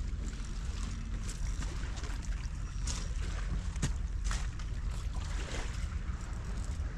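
Wind buffeting the camera microphone, a steady low rumble, with scattered light clicks and taps throughout.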